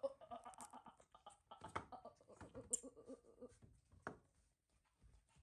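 Near silence: quiet room tone with a few faint soft clicks and a weak murmur.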